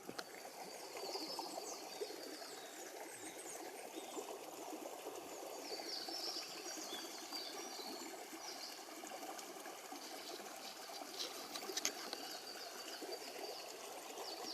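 Stream running steadily, with short, high bird chirps heard over it, clustered about six seconds in and again near twelve seconds.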